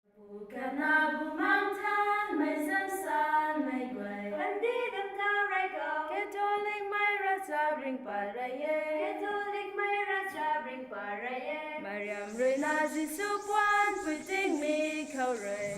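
Voices singing a flowing melody unaccompanied, with a steady hiss joining in about three quarters of the way through.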